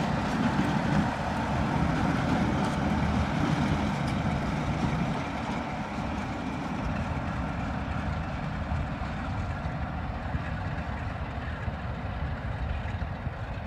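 Class 37 diesel locomotive's English Electric V12 engine running as it hauls a passenger train away, loudest in the first five seconds and then fading as it draws off into the distance.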